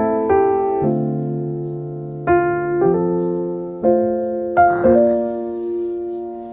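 Slow, gentle solo piano music: soft chords struck about every second and a half and left to ring and fade, the last one held and dying away near the end.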